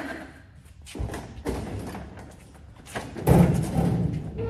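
A few dull thumps: single knocks about one second in, again half a second later and near three seconds, then a louder, heavier thudding stretch lasting about a second.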